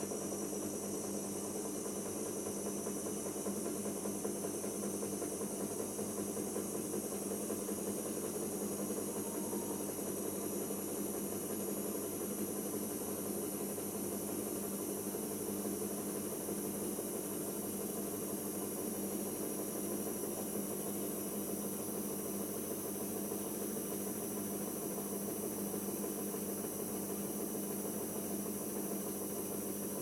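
Siemens serie IQ WIQ1430 washing machine running steadily partway through a spin-only cycle: an even motor hum with a steady low tone and a hiss over it, unchanging in pitch.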